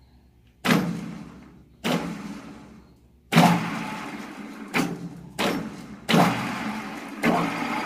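Metal lathe spindle motor jogged on in a string of about seven short bursts, each starting abruptly with a hum and dying away as it coasts. It runs steadily after the last start, turning the collet chuck for a runout check.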